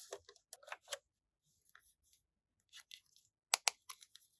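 Quick clicks and crinkles of packaging and small plastic pieces being handled, in a few short clusters. The two loudest are sharp clicks about three and a half seconds in.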